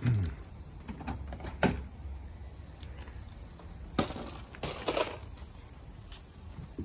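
Plastic trim panels under a Tesla Model Y's front-trunk lid being handled and pulled off: a heavy thump at the start, then a few separate knocks and clicks, one about a second and a half in and more around four and five seconds.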